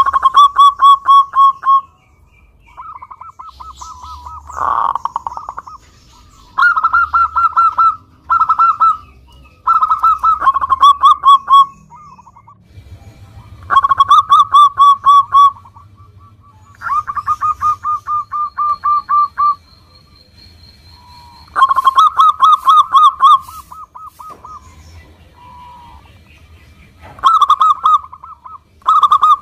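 Local zebra dove (perkutut) singing: repeated bouts of rapid, staccato cooing notes, each bout lasting one to two and a half seconds, with short pauses and fainter cooing between them.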